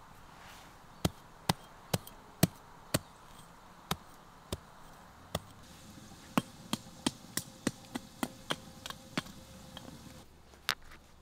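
Knife chopping on a cutting board as sharp, separate chops. About five come roughly half a second apart, a few more follow more slowly, then a quicker run of about ten near the middle, with one last chop near the end.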